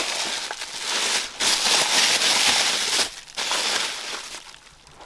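Paper rustling and crinkling as papers or pages are handled and shuffled through, in two loud stretches, with a small click or two, dying down near the end.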